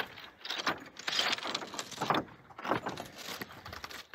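Footsteps on loose granite rock, the stones shifting and knocking together under each step in an irregular series.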